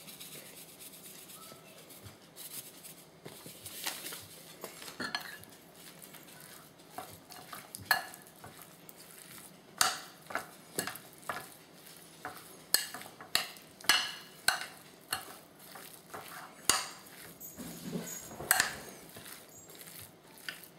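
Seasoned raw chicken slices being mixed in a glass bowl: soft handling with repeated sharp clinks against the glass, sparse at first and coming thick and fast from about ten seconds in.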